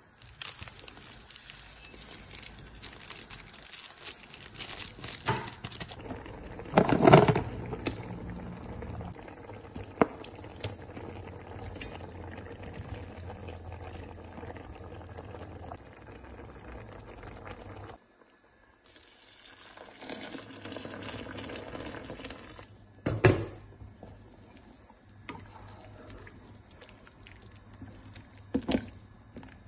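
A pot of oha soup broth with meat and smoked fish, liquid pouring and simmering, with two loud knocks about a quarter and three quarters of the way in. The sound breaks off briefly about two thirds of the way in.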